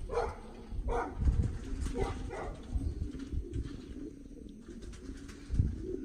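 Short calls from a flock of birds: four in the first two and a half seconds, then quieter, over a low rumble.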